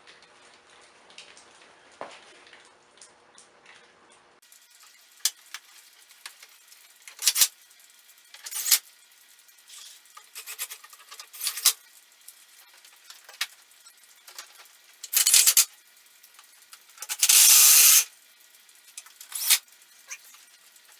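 Scattered clicks, clinks and rattles of hand tools and metal parts being worked on a car, with a louder, roughly one-second burst of rattling near the end.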